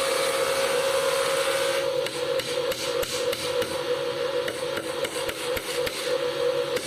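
A steady machine noise with a constant hum for about two seconds, then a run of irregular sharp knocks on wood, several a second, over the continuing hum.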